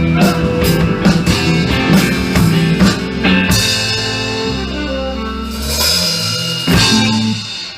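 Live rock band with drum kit and guitar playing the last bars of a song. Steady drum strokes give way about three seconds in to a held chord with cymbals ringing, then one final hit near the end, and the sound dies away.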